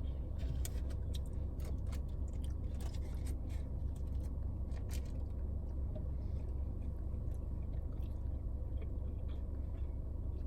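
Close-miked chewing of fast food, with many short wet mouth clicks, most of them in the first five seconds, over a steady low hum.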